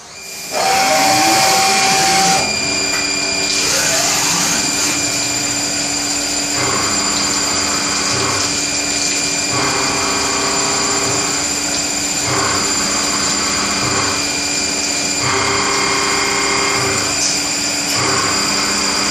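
CNC milling machine running, its spindle whining steadily while the cutter machines the workpiece. The cutting sound changes in a regular cycle every couple of seconds as the tool makes its passes.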